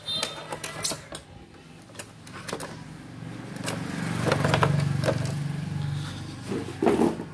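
Clicks, knocks and rattles of an opened induction cooktop's plastic housing and wiring being handled, with a low hum that swells and fades in the middle and a cluster of louder knocks near the end.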